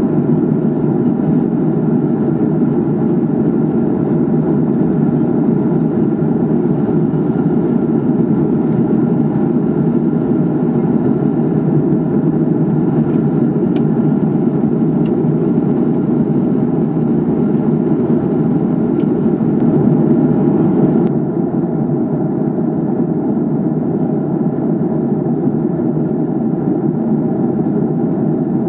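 Airbus A300-600R cabin noise in flight: a steady low roar of the engines and rushing air, heard inside the cabin. About three-quarters of the way through, the higher hiss drops away abruptly and the sound gets slightly quieter.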